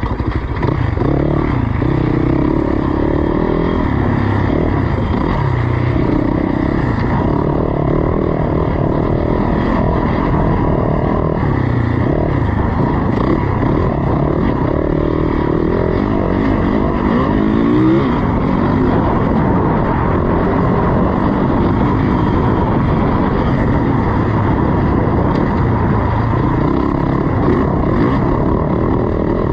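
Enduro dirt bike engine running hard, its pitch rising and falling with the throttle as it accelerates and backs off, with a quick run of rising revs a little past halfway.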